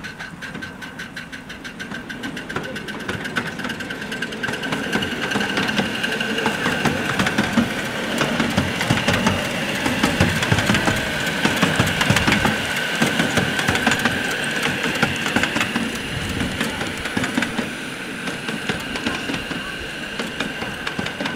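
Model train running on an exhibition layout: a steady high whine with fast, even ticking over a low rumble.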